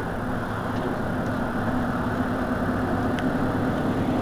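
Mercedes-Benz Citaro C2 city bus idling at a standstill: a steady engine rumble with a low, even hum. A faint click comes about three seconds in.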